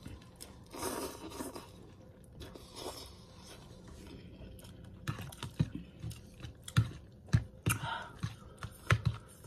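A person eating noodles close to the microphone: two breathy puffs in the first few seconds, then wet chewing and smacking clicks from about halfway through.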